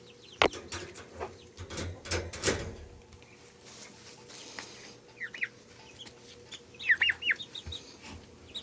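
Backyard poultry calling: a couple of short, high peeps around the middle and a quick run of them about seven seconds in, over a few light knocks in the first couple of seconds.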